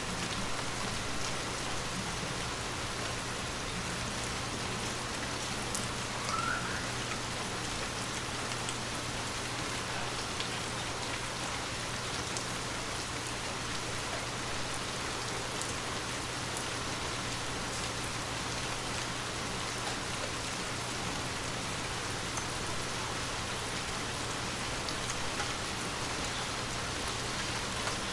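Steady rain falling, with scattered drops ticking, over a faint steady low hum.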